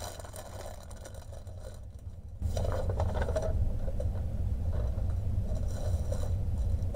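Plastic zip bags of diamond painting drills rustling and crinkling as they are handled and gathered up. About two seconds in, a steady low hum gets louder and stays.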